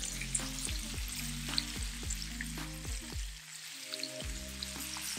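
Swordfish steaks sizzling in butter and olive oil in a cast iron grill pan, a steady hiss with scattered small pops and clicks as a fork moves the pieces against the pan.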